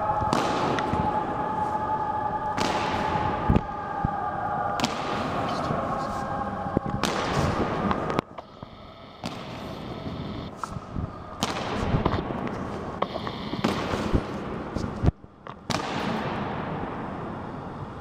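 Honour guard's boots stamping on a stone floor in slow ceremonial marching step, heavy strikes a second or two apart, each echoing in a large hall.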